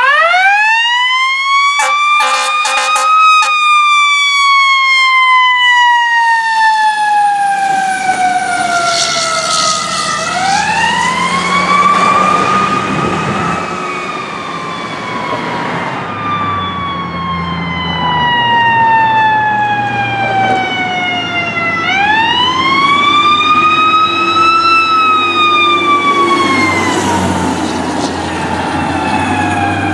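Fire truck siren winding up quickly and then winding slowly down, three times over, with the trucks' engines running underneath.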